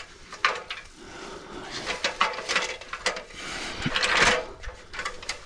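Branches and leaves being handled: scattered knocks and clicks, with a rustling swish about four seconds in.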